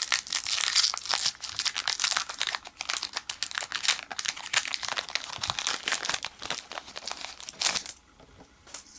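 Foil wrapper of a Pokémon trading card booster pack crinkling as it is handled and torn open, stopping abruptly near the end.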